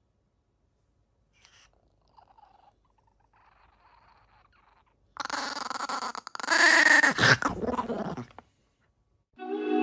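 A dog vocalizing loudly for about three seconds, starting about five seconds in, its pitch dropping near the end; a few faint brief noises come before it.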